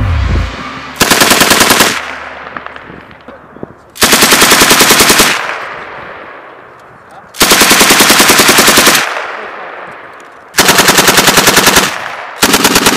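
M240B 7.62 mm machine gun firing five short bursts of about ten rounds a second, each burst lasting one to one and a half seconds. After each burst the report echoes and fades. The last burst starts near the end.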